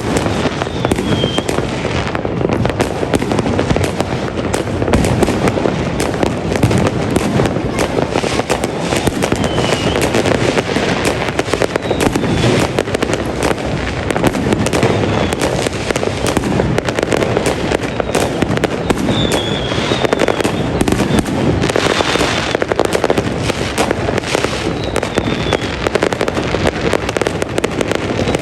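Fireworks going off continuously, a dense, unbroken crackle and rumble of many bangs overlapping, with short high falling whistles several times.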